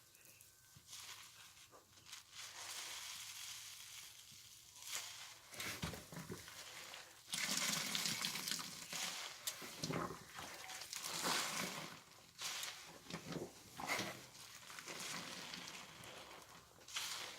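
Soap-soaked laundry blankets squeezed by hand: irregular wet squelching and fizzing of suds, loudest about halfway through.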